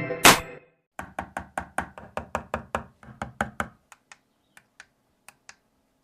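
A rapid run of sharp knocks or clicks, about four to five a second, that thins out after a few seconds to a few scattered faint clicks.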